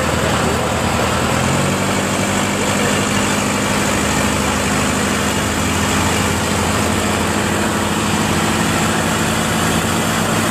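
A boat's engine running steadily, a little higher in pitch from about a second and a half in.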